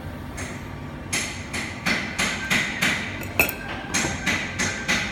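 Rhythmic sharp knocks, like hammering, about three strikes a second, starting about a second in over a steady low hum.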